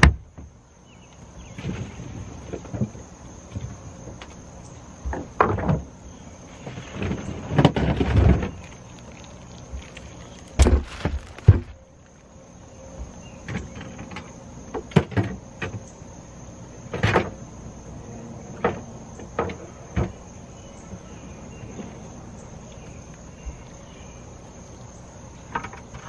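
Scattered knocks, clunks and scraping from crabs being dug out of ice in a boat's console cooler and dropped into a plastic bucket, with two sharp knocks near the middle. A faint steady insect trill runs underneath.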